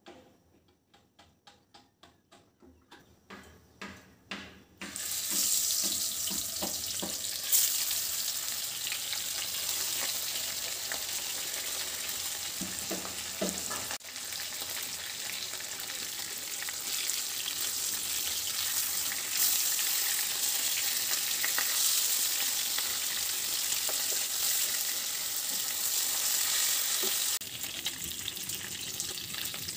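Whole koi fish (climbing perch) sizzling as they fry in hot mustard oil in a wok. There are faint, regular ticks for the first few seconds, then a loud steady sizzle from about five seconds in, dipping briefly about halfway.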